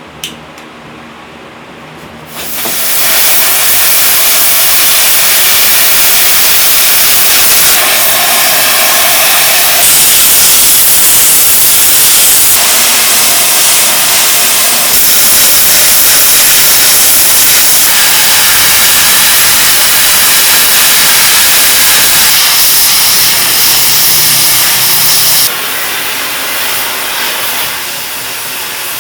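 A low hum, then about two seconds in a loud, even hiss sets in and carries on, shifting in tone at several abrupt steps and dropping somewhat near the end.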